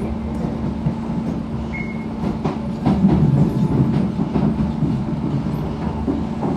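SMRT C651 Siemens train running, heard from inside the carriage: a steady drone with a low hum. A run of wheel clacks comes around the middle, where it grows louder from about three seconds in.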